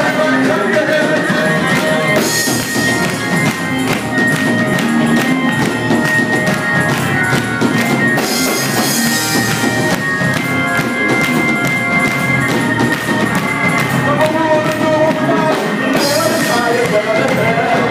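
Gospel choir singing over a live band with drums, the voices holding long notes.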